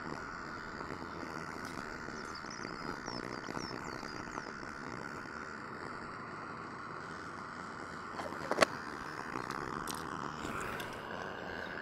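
FireMaple X3 canister gas stove burner turned low to a simmer, its flame hissing steadily while the wind tries to blow it out, sounding as if it is struggling to stay lit. A single sharp click comes about two-thirds of the way through.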